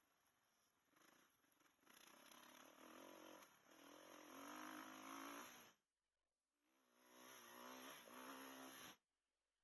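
GoPro recording with an audio fault: a low, steady hum under a high-pitched hiss that swells and fades, and the sound cuts out to dead silence twice, for about half a second near the middle and again near the end.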